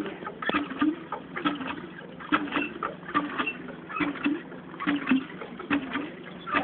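Garden hand lever pump being worked hard, its handle and piston giving rhythmic squeaks and clicking knocks, a couple of strokes a second.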